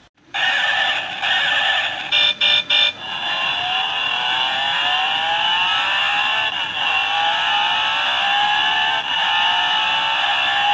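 Novelty F1 tyre alarm clock in demo mode, playing a recorded racing-car engine through its small speaker. Three short revs come about two seconds in, then the engine note rises in pitch again and again as it runs up through the gears.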